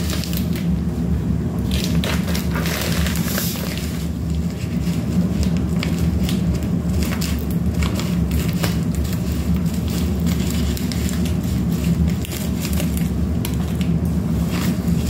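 Crinkling and crackling of a plastic courier mailer bag being handled and opened, over a steady low hum.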